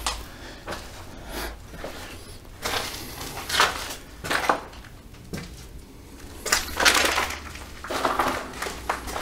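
Footsteps crunching irregularly over broken ceiling plaster and debris on the floor.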